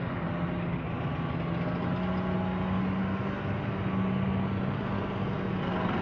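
Steady drone of an engine running, a low even hum over a noisy rumble.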